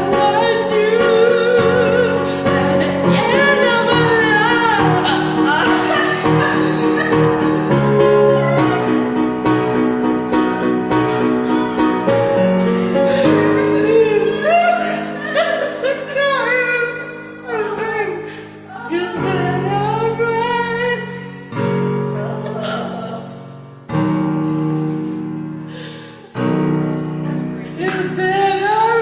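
A woman singing along to a karaoke backing track of held chords, in phrases broken by short pauses.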